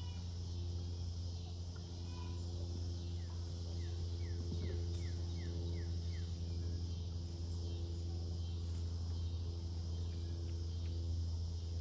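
Insects chirping steadily over a constant low mechanical hum. A little after three seconds in, a run of about eight short, quick, falling chirps sounds over about three seconds.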